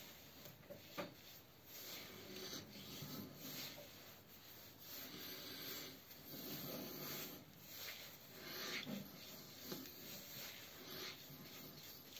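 Hands rubbing and working through a full beard: palms and fingers scratching over coarse beard hair and skin in irregular strokes, faint.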